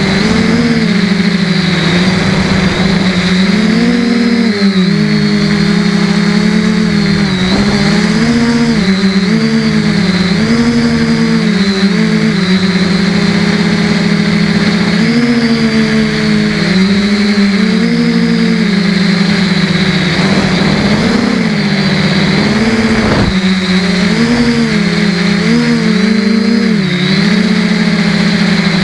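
Quadcopter's brushless Emax motors and propellers whining in flight, several pitches rising and falling together as the throttle changes. The pitch drops sharply and recovers about 23 seconds in.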